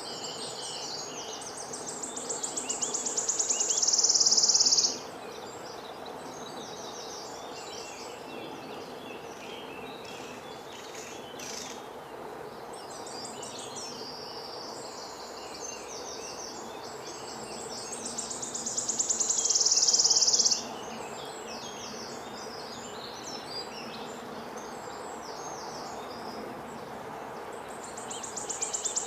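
A songbird's high trilled song builds steadily louder over several seconds and breaks off abruptly. It does this twice, and a third song begins near the end. Faint high chirps come between the songs over steady outdoor background hiss.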